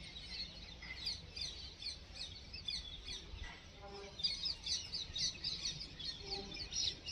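Small birds chirping in a quick, steady run of short high notes, with two faint lower calls about four and six seconds in.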